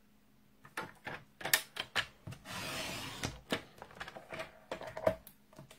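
Stampin' Up paper trimmer cutting cardstock: the blade slides along its track in one rasping stroke of about a second, a couple of seconds in. Clicks and taps of the trimmer and paper being handled come before and after the stroke.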